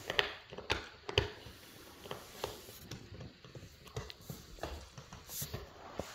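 A dog gnawing on a hard chew: irregular sharp clicks and cracks of teeth on the chew, several in the first second or so, then sparser ones every second or so.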